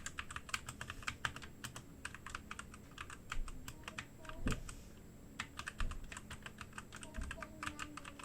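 Typing on a Redragon Deimos K599 mechanical keyboard: an uneven run of key clicks, several a second, with a few short pauses.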